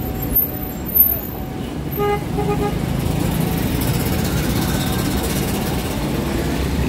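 Street traffic with motor vehicles running past, and a few short horn toots about two seconds in. Two brief knocks come in the first second.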